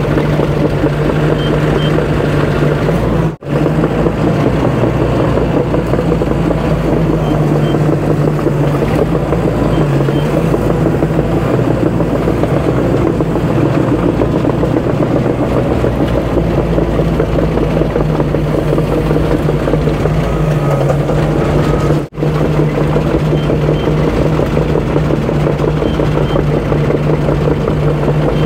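Cat D5 crawler dozer's diesel engine running steadily under load as the blade pushes a pile of dirt. The sound cuts out for an instant twice.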